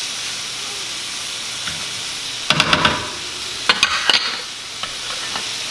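Chopped bacon sizzling steadily in a skillet over medium heat, frying toward crispy. Two short bursts of scraping and clicking about halfway through, as a wooden spatula stirs it against the pan.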